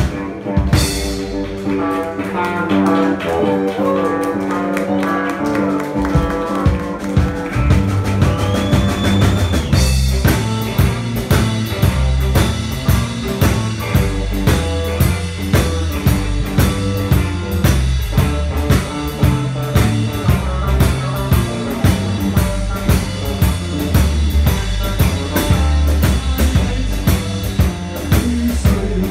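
Live blues-rock band playing: electric guitar lines at first, then bass and drums come in about six seconds in, and the full band settles into a steady beat.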